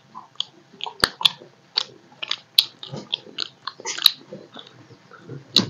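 Two people eating soft, starchy fena bhat by hand: irregular wet smacks, clicks and chewing as they mash the rice with their fingers on steel plates and eat mouthfuls, with a sharp click about a second in and another near the end.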